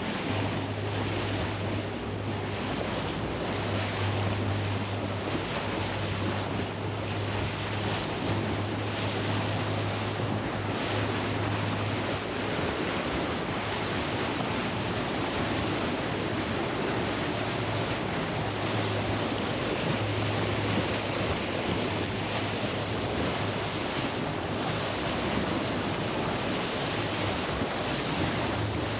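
Boat running at speed on open sea: water rushing and splashing along the hull with wind buffeting the microphone over a steady low engine drone.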